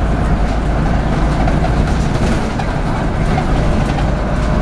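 Interior sound of a 2015 Wright StreetDeck double-decker bus: a steady low rumble from its four-cylinder diesel engine mixed with road and body noise, heard from the upper deck.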